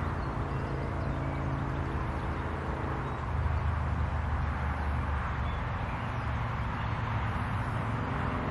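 Steady low hum under an even rushing background noise, with no clear single event.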